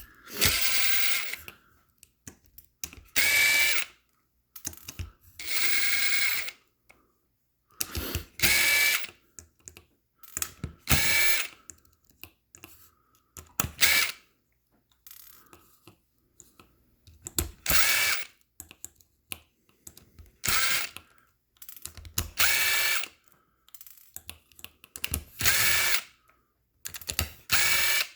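Cordless electric screwdriver or drill driving screws out in short runs of about a second, around ten times with pauses between, its motor whining while it turns.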